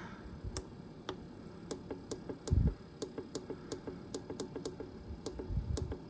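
Clicks of the temperature button on a SetPower RV45S 12-volt fridge's control panel, pressed over and over to step the set temperature down. A few spaced clicks are followed by a quick run of about four to five a second, with one low thump about two and a half seconds in.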